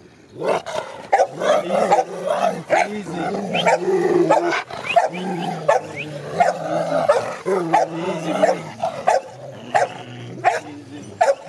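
Rottweilers barking over and over in quick succession, with whining and yelps mixed in.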